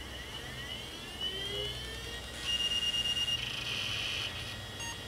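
A 386 PC powering up: a high whine rises in pitch over about two seconds as its hard drive spins up, then settles into a steady high whine with hiss.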